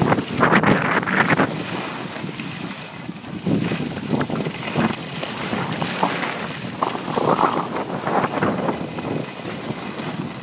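Wind rushing over a phone microphone while skiing downhill, mixed with skis scraping across packed snow. The noise surges and eases every few seconds with the turns.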